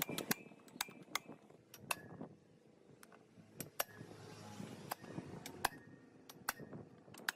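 Irregular sharp metallic clicks and clinks of hand tools and small metal parts being handled, about fifteen over several seconds.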